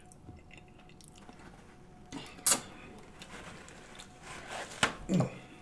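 A sheet of paper towel rustling as it is pulled from the roll and torn off, after a sharp smack from eating about halfway through; a short falling hum near the end.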